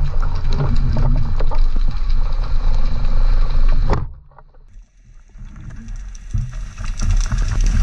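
Underwater noise picked up by a camera in a waterproof housing: a low rumble of water with dense crackling and clicks. It cuts off suddenly about four seconds in, then builds back up near the end.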